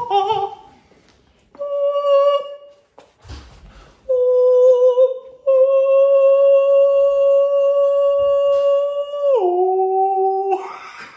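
A man singing in falsetto: a couple of short notes, then one long held note for about five seconds that drops to a lower note for a second before stopping.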